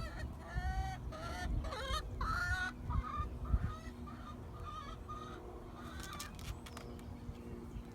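Chickens calling: several pitched calls in the first three seconds, then shorter, fainter ones.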